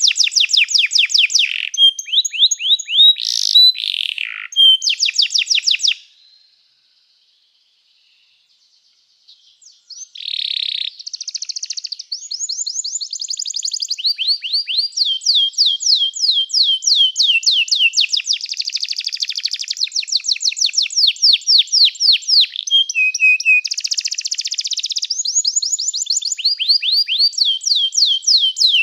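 Belgian canary singing fast rolling trills of rapidly repeated high notes. It breaks off for about four seconds after about six seconds, then takes up the song again and runs on.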